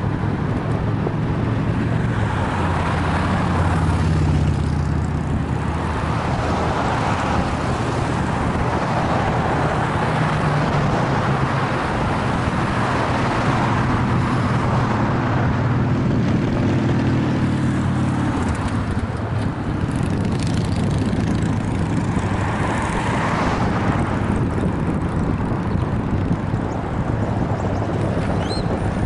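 Road traffic passing on the boulevard beside the bike path: car engines and tyres swelling and fading as vehicles go by, with a low rumble of wind on the bike-mounted action camera's microphone.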